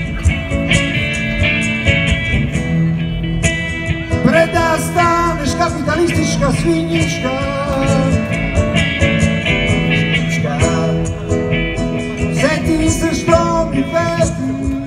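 Live band playing amplified rock music through a PA: electric guitars and a singing voice over a steady beat.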